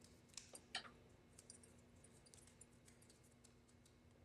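Near silence with a few faint, scattered clicks and light handling noise, most of them in the first second and a half, over a faint steady hum.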